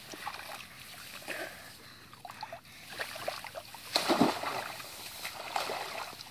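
Shallow muddy water splashing and sloshing as a person wades through it, with one louder splash about four seconds in.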